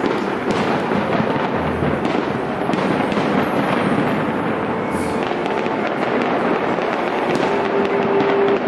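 Fireworks display: a steady, unbroken barrage of aerial shells bursting, with dense crackling.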